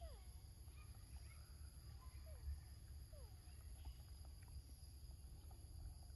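Faint outdoor ambience: a steady high insect drone and a low rumble, with a few faint short falling bird whistles spaced a second or so apart.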